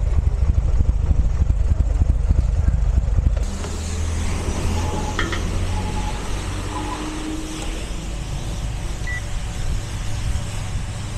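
Motorcycle engine idling with a low, pulsing rumble. About three seconds in it cuts to a steadier hum and hiss of a petrol pump dispensing fuel through the nozzle into the motorcycle's tank, with a short high beep near the end.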